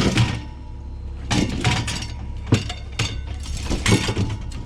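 Objects being handled and shifted while rummaging through discarded items, a series of clatters and knocks, over a steady low hum.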